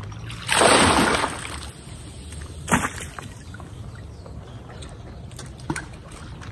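A brief splash of water, followed about two seconds later by a single sharp knock.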